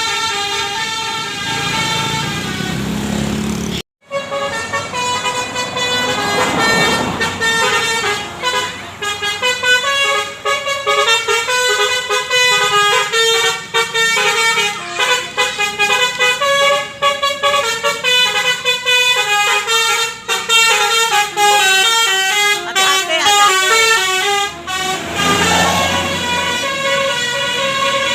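Basuri telolet multi-tone bus horn playing quick runs of stepping notes, one tune after another, over a bus engine heard near the start and again near the end. The sound drops out for a moment about four seconds in.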